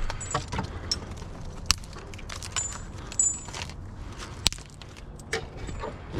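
Cut honey locust branches rustling, scraping and knocking against each other and the car as they are pushed into the back of a vehicle, a run of irregular sharp clicks and snaps.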